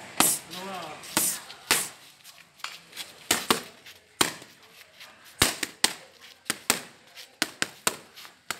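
Boxing gloves smacking focus mitts in quick combinations: sharp slaps in irregular runs of two to four, with short gaps between runs.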